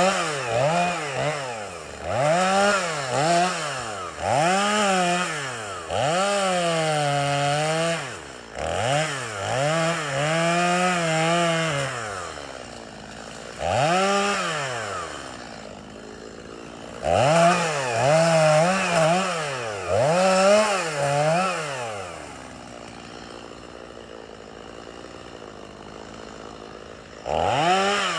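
Gas chainsaw revved again and again in short bursts while cutting saplings and brush, the engine climbing in pitch and dropping back each time. It idles briefly around the middle, and again for several seconds near the end before revving up once more.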